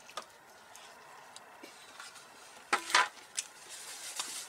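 Light clicks and rustles of a paper plate and paper napkin being handled while eating, with one short, louder noise about three seconds in.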